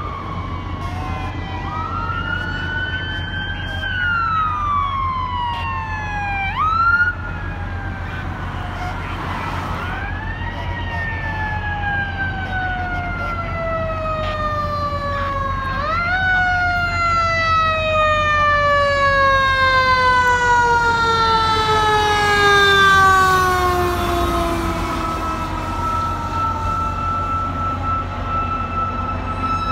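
Emergency-vehicle sirens on responding fire apparatus, several sounding at once. Their pitches climb quickly and then fall slowly over several seconds, again and again. A short loud blast comes about seven seconds in, over the steady rumble of engines and traffic.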